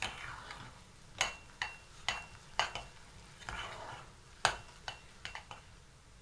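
A metal spoon stirring thick poppy seed filling in a stainless steel pot: soft scraping through the filling, broken by about eight sharp clinks of the spoon against the pot's side, some with a brief metallic ring.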